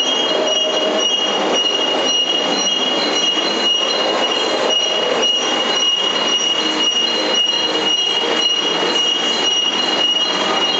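Industrial metal-ware degreasing and washing line running: a steady metallic rattle and clatter with a constant high whine over it.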